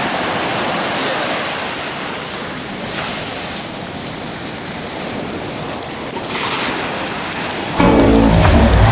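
Ocean surf breaking and washing ashore, a steady rushing noise that swells twice. Music cuts back in near the end.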